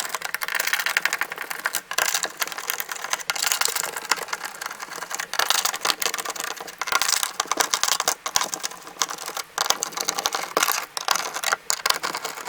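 Screwdriver backing out the mounting screws of wall switches in an electrical box: a dense run of quick clicks and rattles of metal screws and switch straps.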